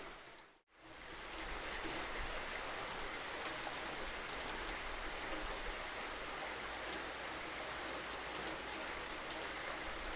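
Steady rain falling, an even hiss of many drops on surfaces. Under a second in, the sound fades briefly to silence and swells back, as at an edit join in the recording.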